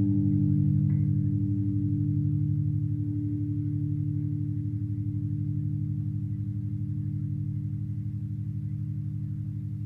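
Electric bass, played through a Marshall Micro Bass amp and a BE215 cabinet, ringing out on a held chord that slowly fades, with an even wavering in its loudness.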